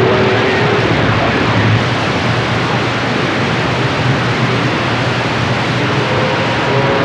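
CB radio receiver hissing with open-channel static. A steady whistle fades out about a second in, and faint steady carrier whistles come in near the end.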